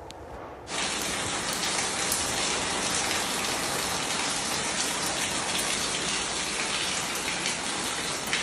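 Water pouring and spraying from a burst pipe, a steady rain-like rush that starts abruptly about a second in.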